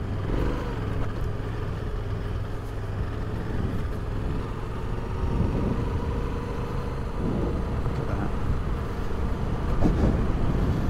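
Yamaha Ténéré 700's parallel-twin engine running steadily as the motorcycle rides along a gravel desert track.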